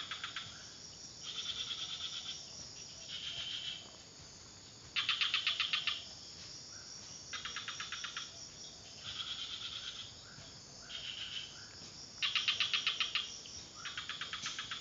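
Insects calling in short pulsed trills, each under a second long, repeating about every second and a half. The loudest come about five and twelve seconds in.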